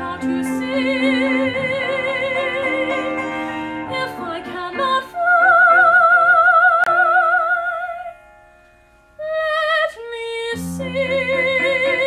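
A woman's trained musical-theatre soprano voice singing with wide vibrato over a recorded piano accompaniment. The loudest part is a high note held for about three seconds in the middle. After a short pause she sings a brief phrase, and the piano and voice carry on near the end.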